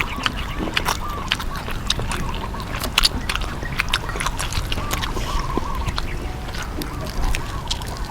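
Crunchy chewing of deep-fried chicken: many sharp crackling clicks. Short runs of repeated duck-like calls come a few times in the background.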